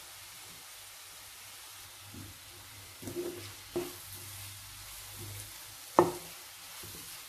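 Shredded cabbage, carrot and spring onion sizzling gently as they are stir-fried in a nonstick kadai with a wooden spatula. A few knocks of the spatula against the pan come through, the sharpest about six seconds in.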